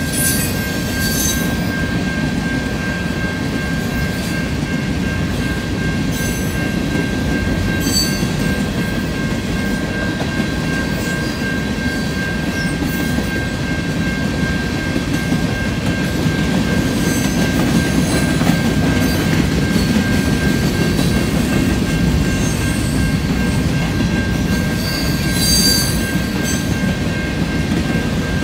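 Empty covered hopper cars of a freight grain train rolling past with a steady rumble of wheels on rail, and a few brief high wheel squeaks along the way. A grade-crossing bell rings steadily throughout.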